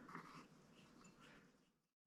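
Near silence: faint room tone with a few soft small noises, dropping to complete silence just before the end.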